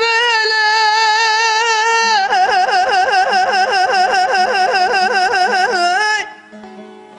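A man singing a Turkish Barak folk song: one long held note, then a fast, wide vibrato trill, five or so pitch swings a second, backed by a bağlama. The voice stops about six seconds in, leaving the softer plucked bağlama.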